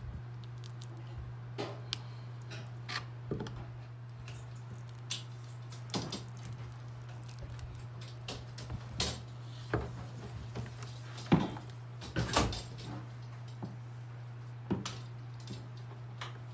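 Honeycomb frame being uncapped: irregular clicks, crackles and scrapes as the wax cappings are pried and cut off the comb with an uncapping tool, with a few sharper knocks about two-thirds of the way through, over a steady low hum.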